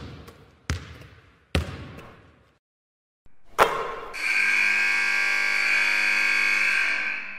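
Logo-reveal sound effects: three sharp hits about a second apart, each dying away, then a stronger hit that opens into a sustained ringing tone, held for about three seconds and fading near the end.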